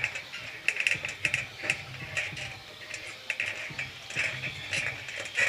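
Electric 1:10 RC off-road buggies running on a carpet track: short bursts of motor and gear whine with irregular clicks and clatter from the cars' tyres and chassis, over a low steady hum.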